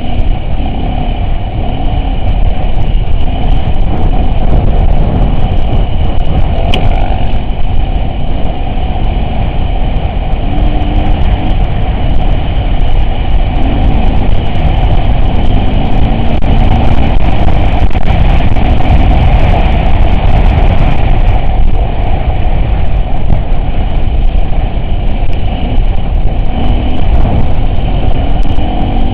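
Off-road vehicle driving, with a loud, steady rumble of engine and drivetrain throughout.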